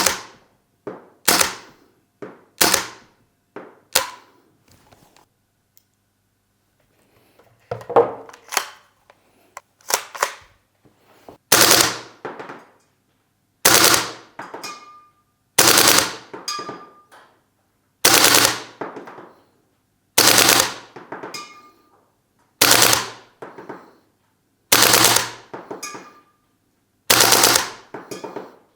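Well Pro WE06 AK Vityaz 9mm gas blowback airsoft rifle firing on green gas. It fires a few quick shots, pauses, then fires short strings of shots about every two seconds.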